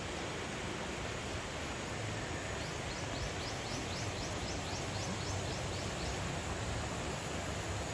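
Clear stream water flowing steadily over a log across the streambed, a continuous rushing hiss. For a couple of seconds in the middle, a high chirping call repeats at about five chirps a second.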